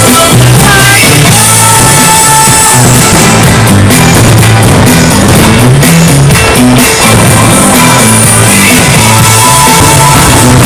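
Loud rock music with drums, guitar and a repeating bass line.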